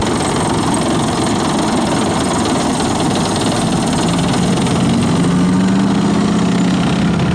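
Tracked infantry fighting vehicle driving past close by, its engine running steadily. A deeper engine drone grows stronger about halfway through as it comes alongside.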